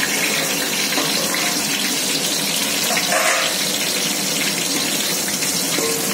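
Hot oil sizzling steadily in a steel pot as sliced onions fry in it with whole garam masala spices.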